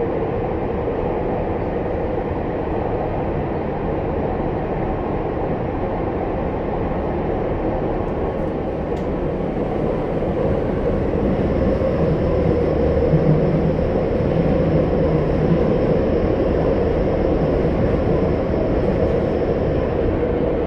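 Running noise of a Tokyu 5050 series electric train, heard inside the car in a tunnel: a steady rumble of wheels on rail that grows a little louder about halfway through, with a faint high steady tone joining in.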